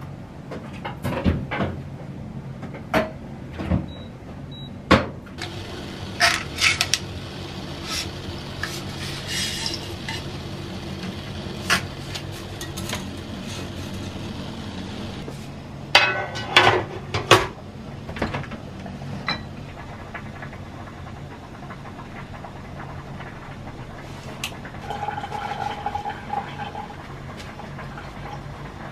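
Kitchen clatter: pots, pans, metal trays and utensils knocked, set down and handled in irregular bursts, over a steady low hum.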